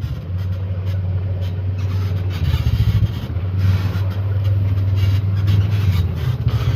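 Vehicle engine running steadily at low speed while following the cattle, a constant low hum with a rough rattling noise over it.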